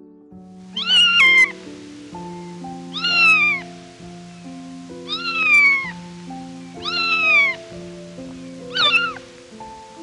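A kitten meowing five times, about every two seconds, each meow falling in pitch and the last one shorter. Soft background music with slow held notes plays underneath.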